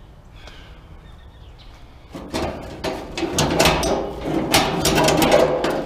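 Metal clattering and rattling from a gas barbecue grill as its lid and metal cooking grates are handled, starting about two seconds in with many sharp knocks.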